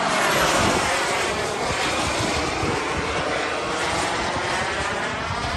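Twin-turbine 1/4-scale YAK 130 model jets making a pass: the turbines' roar and hiss surges loud at the start and then slowly fades as they fly away, with a sweeping, phasing tone.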